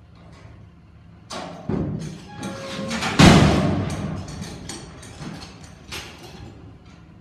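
Steel bucking-chute gate and pen panels banging and clanging as a bucking bull is let out and bucks. The loudest bang comes about three seconds in and rings on, with smaller knocks a couple of seconds later.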